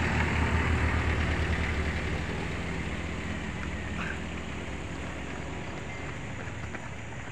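Small van's engine running as it drives past and fades away up the road, a low hum that grows steadily quieter.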